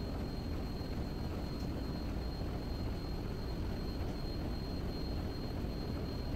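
Steady low drone of a ship's engine-room machinery heard inside the engine control room, with a thin high whine above it.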